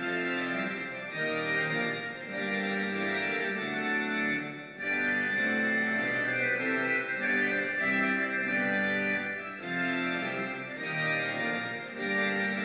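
Organ music: sustained chords that change every second or so.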